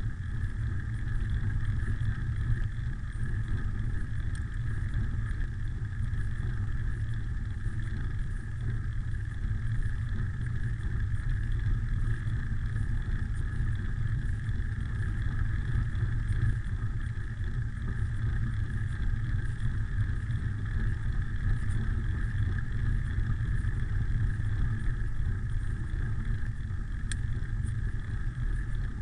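Steady wind rumble on a handlebar-mounted camera's microphone, mixed with the roll of bicycle tyres on asphalt during a downhill ride: an even, low rumble with a constant hiss above it.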